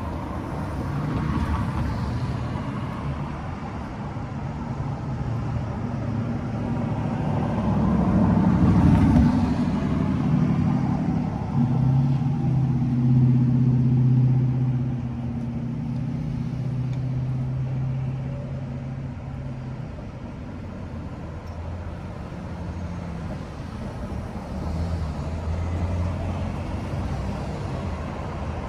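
Street traffic: cars driving past one after another. The loudest pass comes about eight to fourteen seconds in, with a steady low engine hum that fades away by about twenty seconds.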